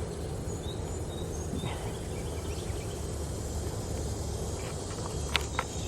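Outdoor background noise: a steady low rumble with faint high chirps, and two sharp clicks near the end.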